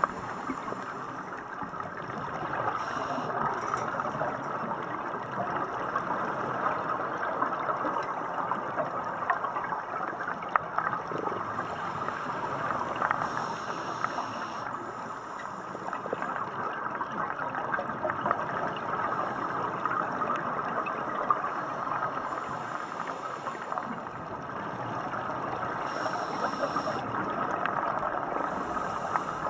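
Underwater ambience on a reef with scuba divers around: a steady rushing, gurgling water noise with scattered crackling clicks, and a few short bursts of brighter hiss about every ten to twelve seconds.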